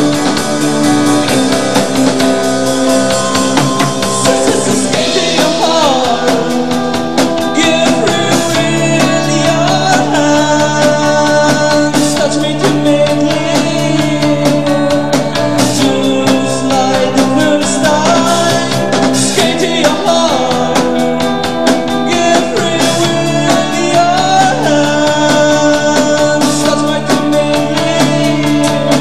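Rock band playing live: drum kit keeping a steady beat under bass, electric guitar and keyboards.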